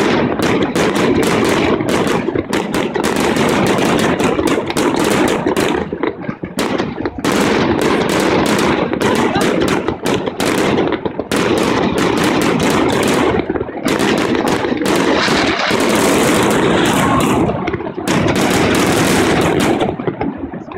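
Fireworks display: a dense, rapid barrage of bangs and crackles run together with no break, with sharper crackling for a few seconds near the end before it dies away.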